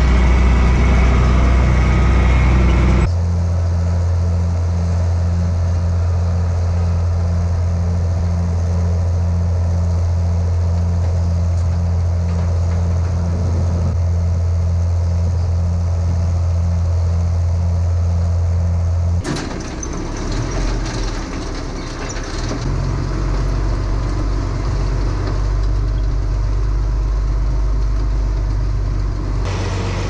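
Diesel farm machinery running steadily in three cuts. First a tractor engine heard from inside its cab. Then a steady low hum with a regular pulse from the tractor-driven vertical feed mixer and the loader filling it. Then a tractor driving in the barn.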